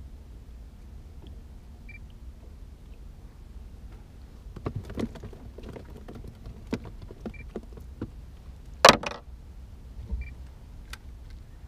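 Clicks, knocks and clatter of fishing rods and tackle being handled against a small boat's fittings, with one loud sharp knock about nine seconds in. A faint short electronic beep repeats about every three seconds over a low steady rumble.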